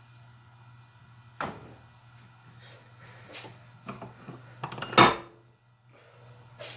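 Tools and bits being handled, clattering: a few separate knocks and clicks, the loudest about five seconds in, over a steady low hum.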